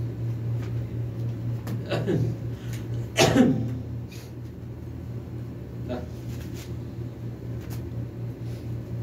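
A man coughs twice, about two and three seconds in, the second louder, over a steady low electrical hum.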